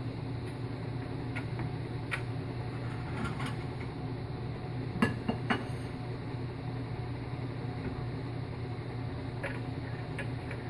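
A plate being handled and set down on a kitchen counter: three quick ceramic clacks about five seconds in, with a few lighter clicks before and after, over a steady low hum.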